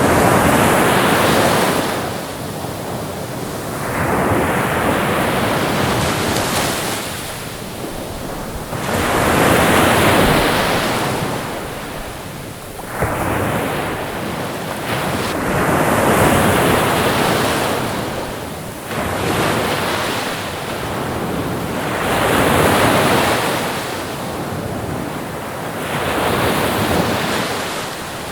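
Ocean surf, waves breaking and washing up the shore, the rush swelling and falling away every three to four seconds.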